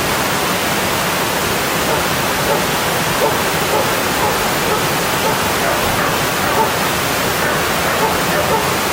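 Mountain stream water flowing steadily, an even rush with small gurgles and splashes throughout.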